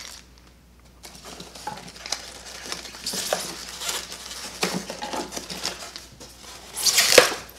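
Packaging being handled during unboxing: plastic wrap and cardboard rustling and crinkling as parts are lifted out of a foam-packed box, with a louder rustle and a knock near the end.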